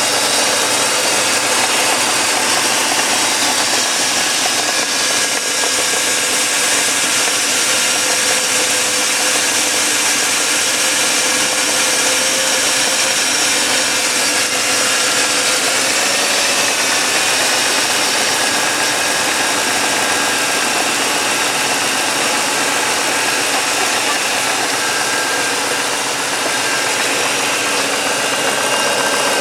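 1997 BMW 740's 4.4-litre M62 V8 engine running steadily, rising slightly in pitch around the middle. The owner wonders whether its noise is valve lifter noise.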